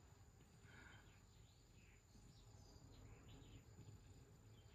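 Near silence: quiet room tone with a few faint, short bird chirps.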